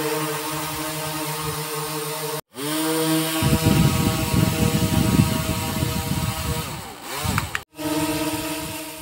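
Four small drone motors with propellers whine steadily on a homemade RC boat, holding several pitches at once. The sound breaks off sharply twice. After the first break the whine rises in pitch and a rough low rumble joins it, and the pitch then swings up and down before the second break.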